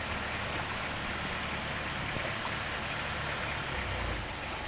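Long-tail boat engine running steadily as the boat travels along a canal, a constant low hum under a broad hiss of water and wind.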